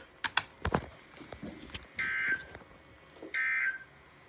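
A few sharp clicks in the first two seconds, then two short bursts of warbling data tones about a second apart: the Emergency Alert System's SAME end-of-message code, marking the end of the alert.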